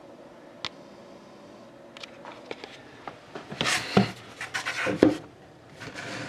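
Handling noise: a single click early, then about a second and a half of rustling and knocks midway, over a faint steady hum.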